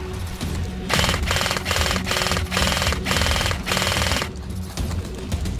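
Airsoft electric light machine gun, an ICS L86A2 LSW, firing full-auto in a string of about six short bursts of rapid mechanical chatter, each about half a second long.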